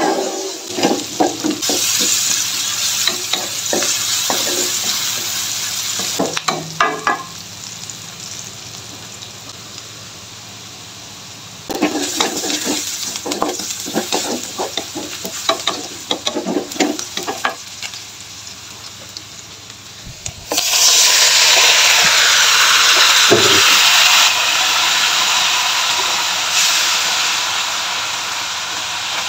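Sliced onion, red chili and garlic sizzling in oil in a wok, with stirring scrapes and taps against the pan in bursts. About two-thirds of the way through, water spinach goes into the hot oil and the sizzle jumps suddenly to a loud, steady hiss.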